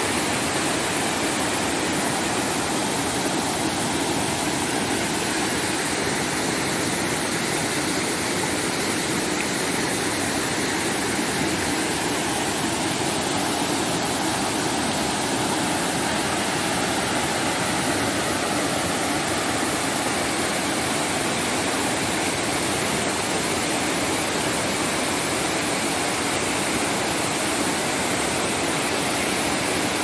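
A waterfall cascading down a rocky slope into a pool: a steady, unbroken rush of falling water.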